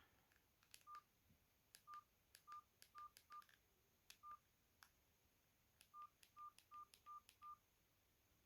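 Mobile phone keypad beeps: about eleven short single-pitched beeps, each with a faint click of the key being pressed, in uneven groups and ending in a quick run of five.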